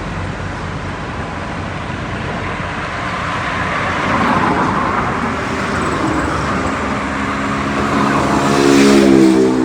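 Highway traffic going past: a steady rush of road noise that swells as vehicles pass, then a vehicle with a strong pitched drone passes close, loudest near the end.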